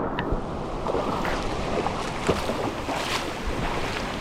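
Steady rush of river water flowing over rocks, with a few faint clicks scattered through it.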